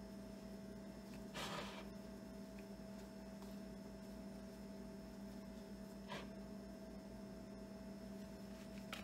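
A steady low electrical hum, with a brief rustle about a second and a half in and a short click about six seconds in from hands working onion rings through bowls of egg and breading.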